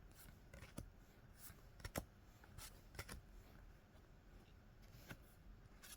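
Pokémon trading cards being handled: faint rustling with a few short, sharp clicks, the loudest about two seconds in.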